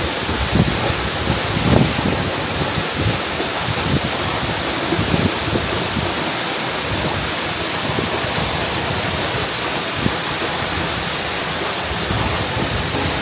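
Steady roar of a waterfall crashing down close by, a dense even rush of water, with a few faint low knocks.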